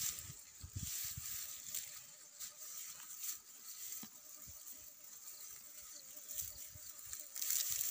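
A cow tearing up and chewing cut grass: irregular rustling crunches, with a louder burst near the end.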